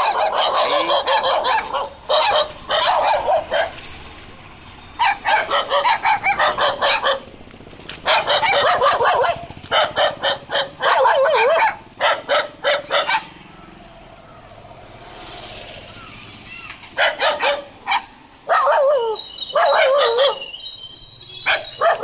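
Dogs barking in quick bouts of several barks each, separated by short pauses, with a longer lull of a few seconds past the middle.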